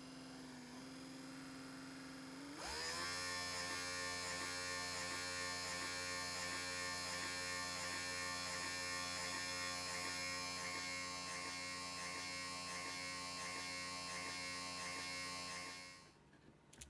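Mercedes W124 rear window regulator motor running unloaded with its cable pulley removed. It starts about two and a half seconds in with a quick rising whine, runs steadily with a regular pulsing about twice a second, and stops near the end. A steady hum is heard before it starts.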